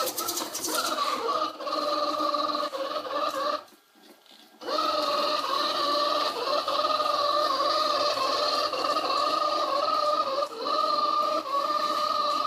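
XRobot 510D robot vacuum cleaner running, its motor giving a steady whine that wavers slightly in pitch over a light hiss, cutting out for about a second roughly four seconds in.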